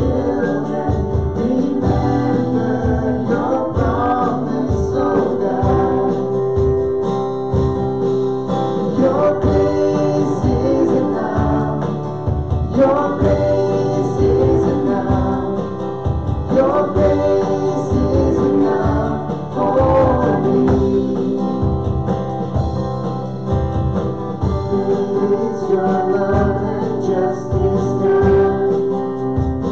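Worship song: voices singing over band accompaniment with a steady beat.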